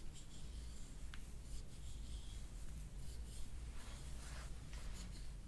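Soft, irregular rubbing and brushing of hands moving over a patient's body and clothing during hands-on soft-tissue work, over a low steady hum.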